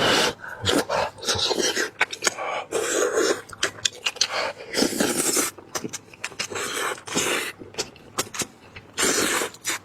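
Close-miked eating sounds from a person chewing braised lamb head meat: wet clicks and lip-smacks, with several short sucking or slurping bursts.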